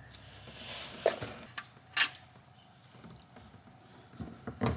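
Engine oil running out of the opened oil filter housing and splashing down as the spin-on filter is unscrewed by hand. A hiss of pouring oil in the first second, then two sharp knocks from the filter being handled, and a few softer knocks near the end.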